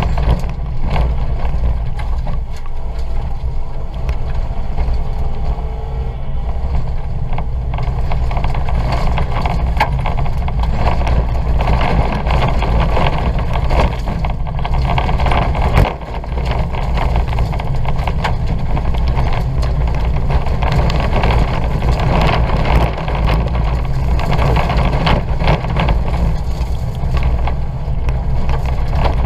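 Ford Fiesta 1.2's engine running hard under racing load, heard from inside the cabin, with a steady low rumble and many small clicks and knocks from the rough dirt surface. The sound drops briefly about sixteen seconds in, as the driver lifts off.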